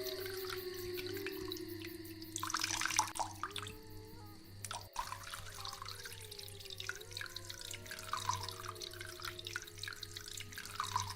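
Water trickling and dripping, with many small drips, over a low steady hum and faint wavering tones.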